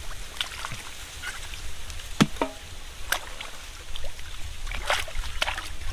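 Hands splashing and sloshing in shallow muddy water as small catfish are grabbed, with scattered small splashes and knocks.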